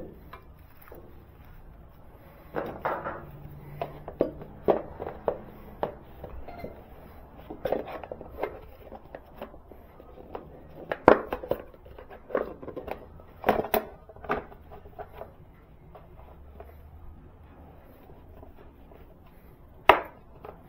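A hard plastic motorcycle side cover being worked into place against the frame: a string of irregular light knocks and plastic clicks as its tabs are pushed in, with a sharp click near the end.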